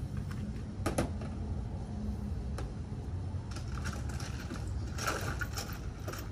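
Small clicks and rattles of hand tools and parts being handled in an engine bay, with one sharp click about a second in and a busier patch of clatter near the end, over a steady low rumble.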